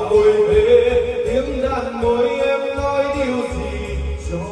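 Music with a singing voice over a bass beat.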